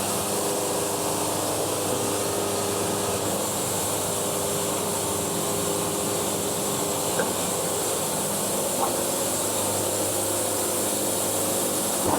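Wood-Mizer portable band sawmill running steadily, its engine holding an even note as the band blade cuts a board off the log.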